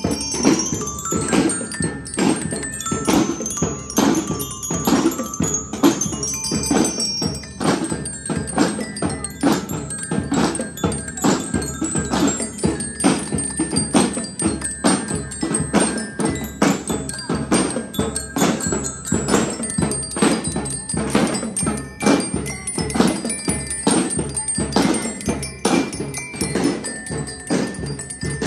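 Children's drum and lyre band playing: bell lyres struck with mallets ring out a melody over a steady beat of snare drums.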